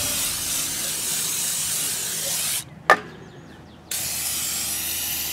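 Aerosol can of Fluid Film rust inhibitor spraying through its extension straw, a steady hiss. It stops about two and a half seconds in, a single sharp knock follows, and the spray starts again about a second later.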